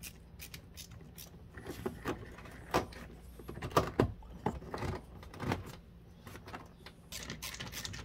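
Plastic clicks and knocks as a Fox Body Mustang's power window and lock switch panel is handled and pressed into the door trim. Near the end a screwdriver scratches as it turns the panel's screws.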